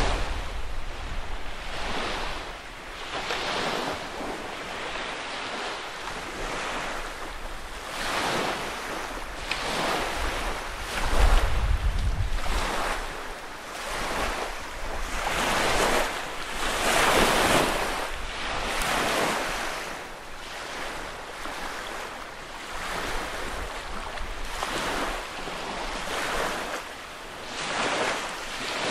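Small lake waves lapping and washing on the shore, a fresh wash every second or so, with gusts of wind rumbling on the microphone.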